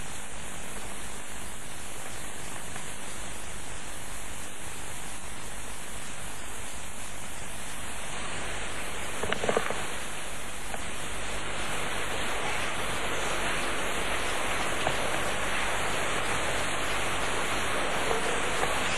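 Steady rain, growing a little heavier about eight seconds in, with a brief short sound about nine and a half seconds in.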